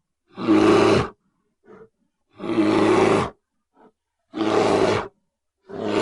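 Angry bear roaring: four roars of about a second each, one roughly every two seconds, the last cut off at the end, with two faint short grunts in the gaps.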